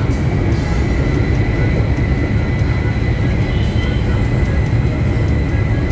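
Steady low rumble of a train running along, heard from inside the passenger car, with a faint high whine held throughout.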